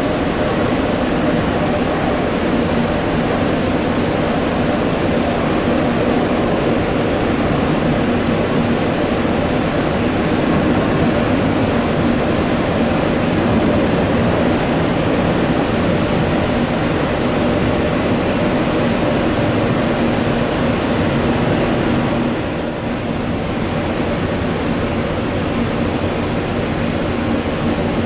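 Jet airliner engines running, a loud steady rumble with a low hum through it that dips slightly about three-quarters of the way through.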